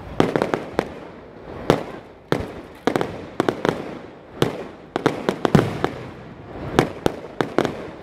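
Aerial fireworks shells bursting in quick succession: a dense, irregular string of sharp bangs, several a second at times, each trailing off briefly.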